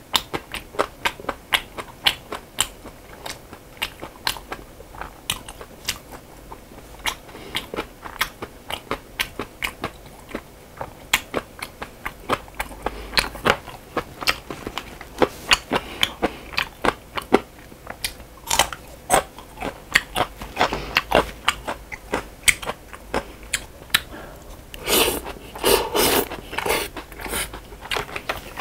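A person chewing jokbal (braised pig's trotters) close to the microphone: a steady run of short mouth and lip clicks, a few a second, with a denser, louder stretch near the end.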